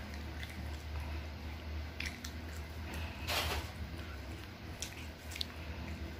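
Crisp roasted seaweed snack sheets crackling as they are bitten and chewed: a few small crunches and one louder rustle a little past the middle. A low steady hum runs underneath.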